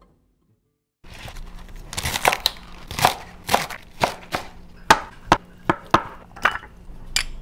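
Chef's knife chopping through bok choy, then cutting tofu, on a cutting board. Each stroke is a crisp crunch with a knock on the board, about two a second, starting about a second in.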